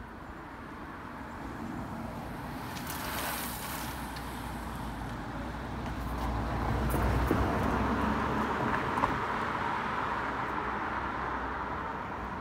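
Road traffic: cars passing along a village street, with tyre and engine noise swelling to its loudest about seven seconds in.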